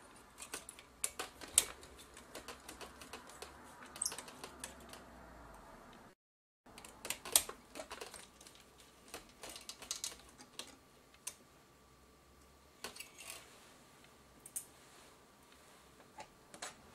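Faint, irregular clicks and taps of a small screwdriver and metal parts being handled while small screws are taken out of a camcorder's metal mounting bracket.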